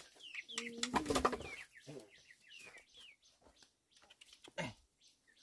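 Chickens: repeated short, falling peeping chirps, with a burst of wing flapping about a second in.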